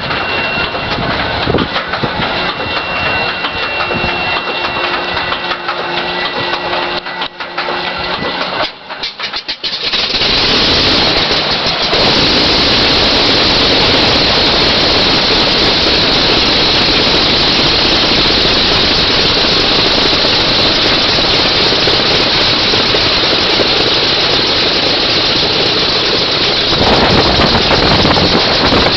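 An engine starting up and running. For about ten seconds there is lower mixed noise with faint steady whining tones, then a loud, steady rush of running-engine noise sets in. It gets louder again about two seconds later and once more near the end.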